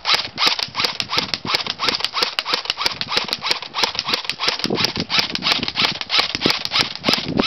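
JG full-metal AK47 electric airsoft gun firing on semi-auto: a fast, even string of sharp shots, about five a second.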